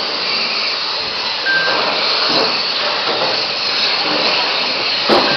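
Electric radio-controlled Mini touring cars racing: a steady whine and hiss of small electric motors and tyres on the track. A short beep sounds about one and a half seconds in.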